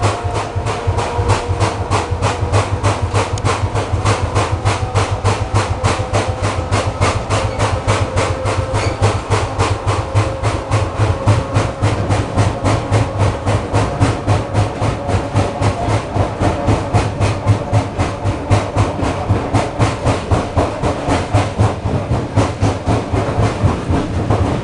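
ER2R electric multiple unit carriage running, with a bogie giving a fast, even knocking, several knocks a second, over the steady hum of the running train. The knock is strange and unexplained by the rider.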